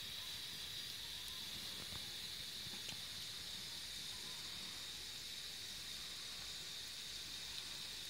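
Wood fire burning in a homemade 55-gallon barrel furnace: a faint, steady sizzling hiss with a few small crackles.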